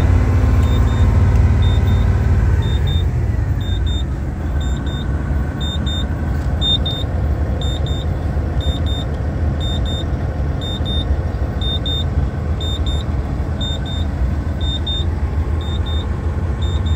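Isuzu 7.8-litre inline-six turbo diesel in a 2009 GMC T7500 truck, heard from inside the cab: the revs fall back from a raised speed over the first three or four seconds, then it idles steadily. A short high double beep repeats about once a second.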